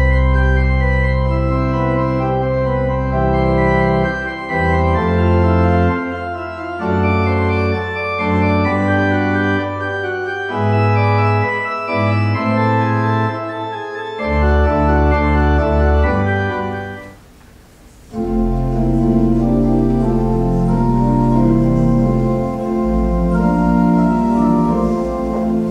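Organ playing slow, sustained chords with deep bass notes. It drops away briefly about seventeen seconds in, then resumes with more held chords.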